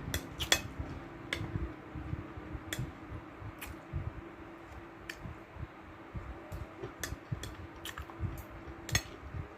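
Fork and knife clinking against a plate while eating: about a dozen small, irregular clicks, the sharpest near the end.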